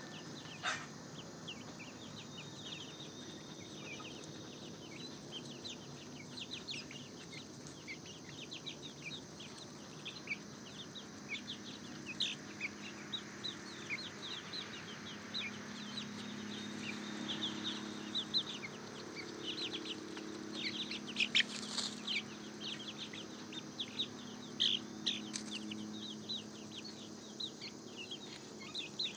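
A flock of young chicks peeping almost continuously, many short high cheeps overlapping as they forage. Lower, softer calls join in through the second half.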